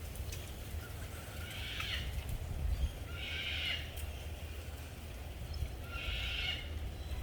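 An animal call repeated three times, each lasting about half a second to a second and spaced two to three seconds apart, over a steady low rumble.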